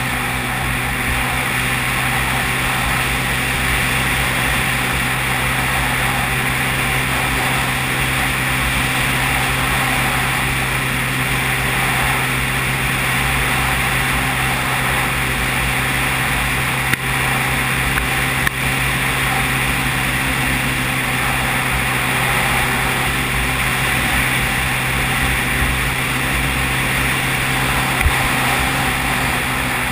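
ATV (quad bike) engine running at a steady speed while riding along a gravel trail, with a few brief knocks partway through and near the end.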